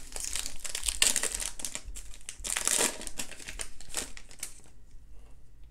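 Baseball card pack wrapper crinkling and tearing as the pack is opened by hand, with busy crackling that dies down after about four and a half seconds.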